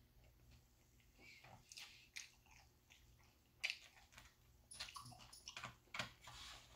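Faint eating sounds: chewing and mouth noises, with a plastic fork clicking and scraping in a foam takeout tray, a few sharper clicks and crackles in the second half.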